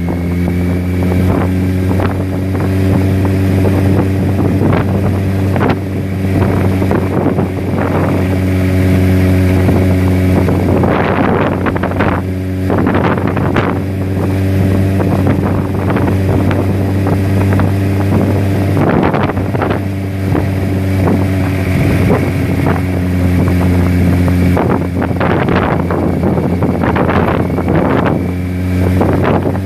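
A motor running with a steady, even drone, crossed every second or so by short gusty noise bursts.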